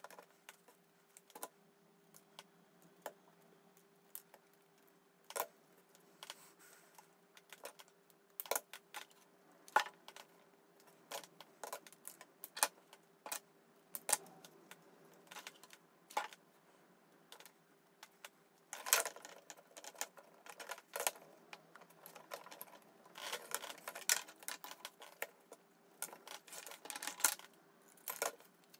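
Scattered light clicks and taps of pencil, strip and grey card being handled on a cutting mat, with denser scratchy runs in the last third as scissors cut through the card. A faint steady hum lies underneath.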